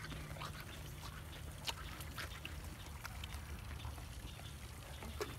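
Miniature horse chewing carrot close to the microphone: irregular wet crunches and clicks.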